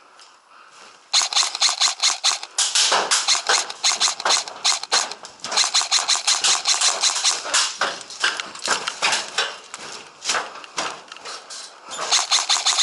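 Airsoft electric guns firing rapid full-auto bursts: a fast string of sharp snapping shots that starts about a second in and runs on in long bursts with short breaks.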